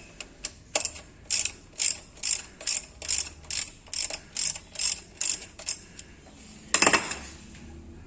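Ratchet wrench clicking in an even rhythm, about two and a half clicks a second, as it backs out the oil-pan drain plug, then a single louder clank near the end.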